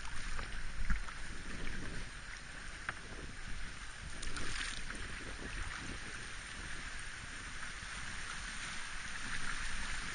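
River water rushing over shallow riffles around a canoe, a steady hiss of moving water, with wind rumbling on the microphone.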